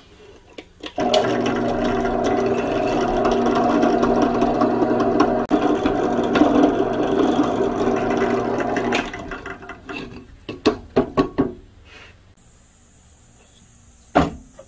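Electric drill running and boring through a wooden block: a steady motor drone with cutting noise for about eight seconds, with a brief dip midway. Several short knocks follow, then one sharp knock near the end.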